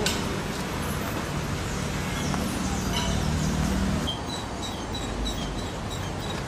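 Outdoor street ambience: a steady hum of road traffic, with a bird chirping repeatedly in the second half.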